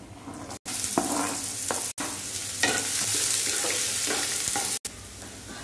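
Chopped onion sizzling loudly in hot oil in a nonstick kadai as it is tipped in, and a steel spoon scraping and stirring it around the pan. The sizzle starts about half a second in and eases off near the end, broken by three very brief silent cuts.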